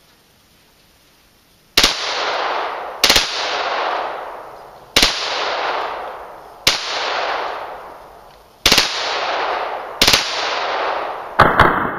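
Gunfire from an FN P90-pattern 5.7×28mm bullpup: seven reports about every one and a half to two seconds, some of them quick doubles and the last a short burst of three. Each is followed by a long echo that dies away. The first report comes nearly two seconds in.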